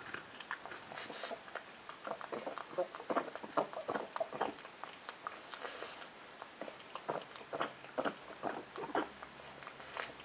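A pug eating: an irregular run of short chewing and smacking noises, several a second.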